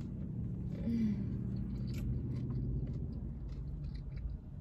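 A person chewing a sub sandwich, moist open-mouthed chewing with small smacking clicks, over a low steady hum.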